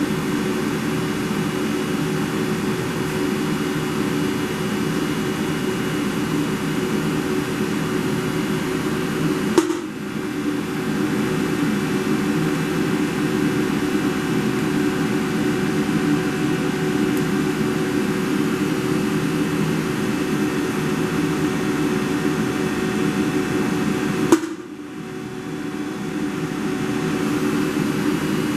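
CNC milling machine running steadily, its spindle and cutter machining aluminium soft jaws. Two sharp clicks, one about ten seconds in and one near the end, are each followed by a short dip in the noise.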